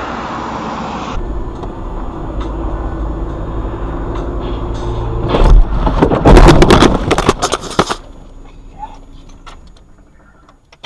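Car collision: a loud crash of impact and clattering lasting about two and a half seconds over a steady engine hum, then much quieter with a few small knocks.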